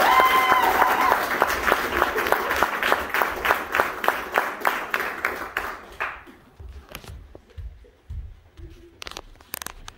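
Audience applauding, with a couple of voices whooping at the start. The clapping dies away about six seconds in and leaves a few scattered knocks.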